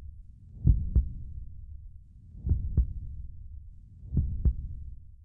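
Heartbeat sound effect: slow double thumps (lub-dub), three beats in all, fading out at the end.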